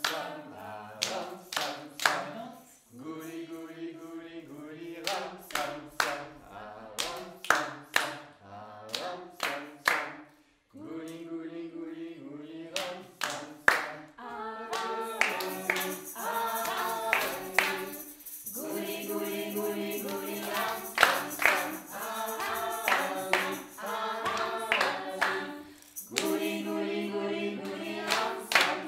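A group of voices singing a nursery song together, with steady hand clapping keeping the beat.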